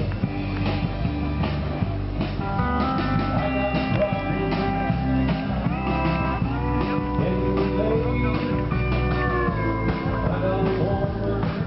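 Music with guitar and a steady beat, its sustained notes sliding in pitch in places.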